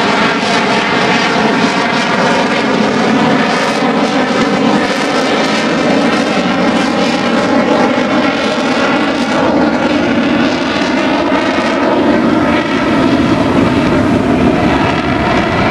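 Airplane engine drone from an aircraft in flight, steady and continuous, its pitch drifting slowly as it moves.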